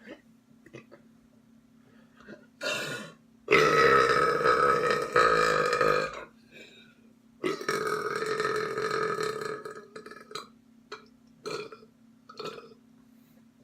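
Loud belching: a short burp, then two long, loud burps of about two and a half seconds each, followed by a few short, quieter sounds.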